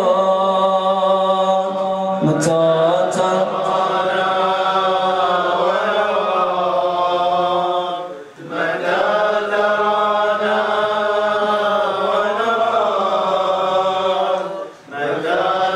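A man's voice chanting a slow mourning lament in long, drawn-out melodic phrases, breaking off briefly about eight seconds in and again near the end.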